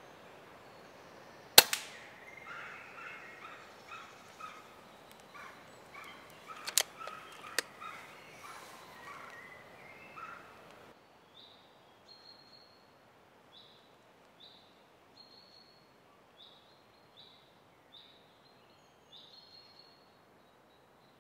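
A Daystate Wolverine pre-charged air rifle fires once, a single sharp crack about a second and a half in, followed by two smaller sharp clicks a few seconds later. Birds chirp through the first half, and later a bird repeats a short high call roughly once a second.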